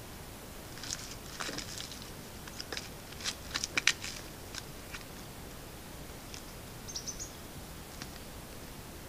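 Quiet forest ambience over a steady microphone hiss, with a cluster of short, sharp clicks and ticks between about one and four seconds in and a few brief high chirps near seven seconds.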